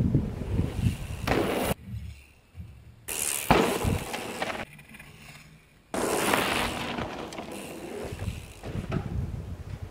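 Mountain bike riding past on a dry dirt trail: tyres rolling over dirt and gravel with low bumps. The sound cuts abruptly to quieter stretches and back twice.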